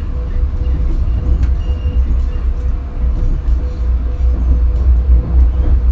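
Steady, loud, deep rumble of a moving train, with a constant hum tone over it and a few faint clicks.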